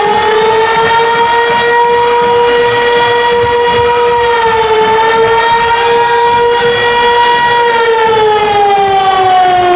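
A siren wailing in one long tone. It climbs at the start, holds steady with a brief dip about halfway, and slides down near the end.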